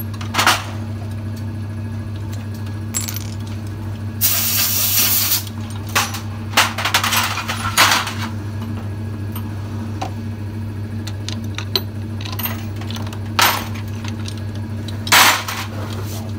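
Metal engine parts and tools clinking and tapping in short scattered strikes as a Yamaha Exciter's opened cylinder head is worked on by hand, over a steady low hum. A hiss lasting about a second comes about four seconds in.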